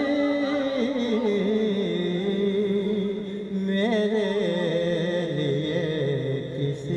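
A man singing a verse of an Urdu ghazal in drawn-out, sung recitation (tarannum), holding long wavering notes that sink slowly in pitch. About four seconds in, a new phrase starts higher.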